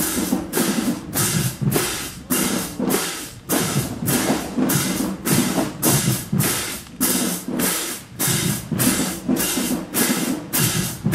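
Marching band drumline playing a marching cadence: cymbal crashes land on every beat, about two and a half a second, over pounding drums.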